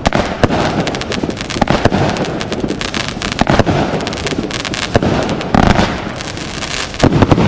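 A 36-shot firework cake firing shots in quick succession: a dense run of sharp bangs and crackling, with a loud cluster of reports near the end.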